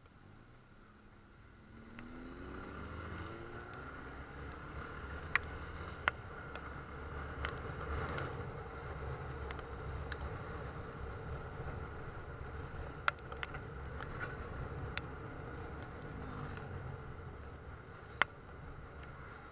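A road vehicle's engine pulls away about two seconds in, rising in pitch, then runs steadily and eases off near the end. A few sharp clicks are scattered through it.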